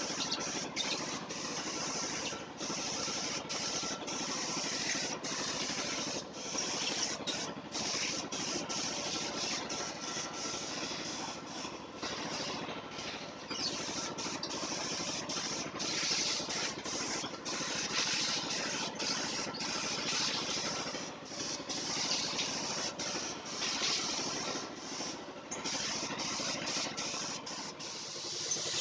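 Paint spray gun hissing in long passes broken by frequent short pauses, with a steady machine hum underneath.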